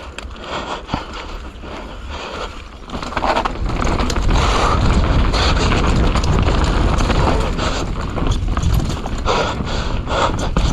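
Mountain bike riding fast down a wet dirt trail: wind buffeting the microphone, tyres rolling over the ground, and the chain and frame clattering in quick knocks over bumps, louder from about three seconds in.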